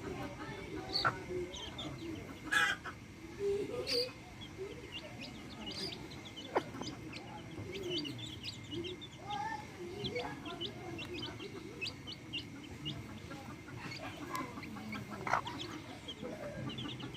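Backyard hens clucking while their chicks peep: a steady stream of short high peeps over lower clucks, with a few louder calls standing out.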